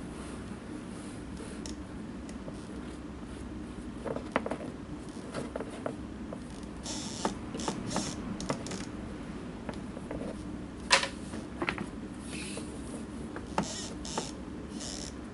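Scattered clicks, taps and brief rustles of a leather welt strip and hand tools being handled on a lap board, the sharpest click about eleven seconds in, over a steady low hum.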